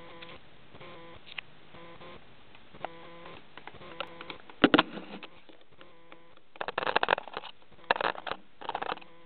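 Budgerigar at close range: soft short pitched chirps repeating about once a second, then loud scratching and tapping as the bird pecks at and brushes against the camera, once about halfway through and again in a cluster near the end.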